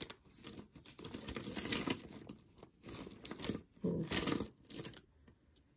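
Small plastic bag crinkling in irregular bursts as it is handled and opened to take out a piece of jewelry. The rustling stops about five seconds in.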